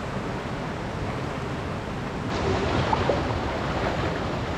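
Steady rush of flowing river water, becoming brighter and a little louder about halfway through.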